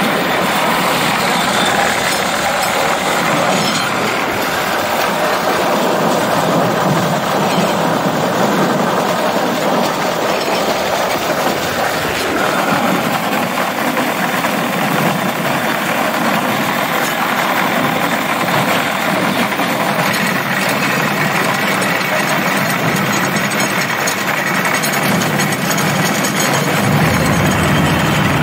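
Motorized rail cart running steadily along the track: an even, loud engine-and-travel noise with no breaks.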